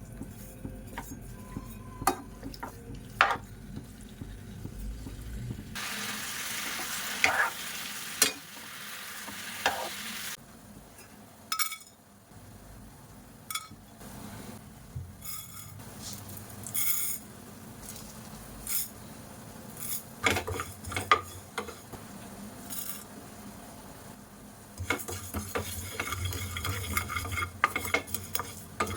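Chicken pieces frying in hot oil in a pan, stirred with a metal spoon that clinks and scrapes against the pan. The sizzling swells for a few seconds about six seconds in, and again near the end.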